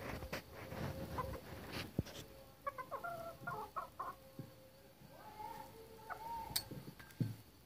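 Roosters clucking as they feed: a quick run of short clucks about three seconds in, then one longer drawn-out call. A few sharp taps come from beaks pecking at a clay food bowl.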